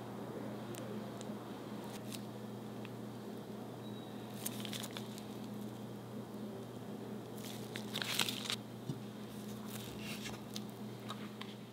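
Soft squishing of softened butter pressed out through a piping bag's metal tip, with a few brief plastic crinkles and clicks, the loudest about eight seconds in, over a steady low hum.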